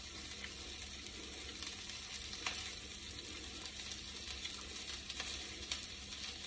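Brussels sprouts sizzling in a frying pan: a faint, steady crackling hiss with scattered small pops.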